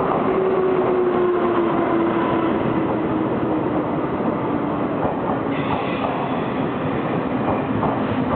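Taiwan Railways E200-series electric locomotive and its Chu-Kuang Express coaches running past along the platform as the train pulls into the station. A steady tone falls slowly in pitch throughout. In the second half the wheels clack over rail joints as the coaches go by.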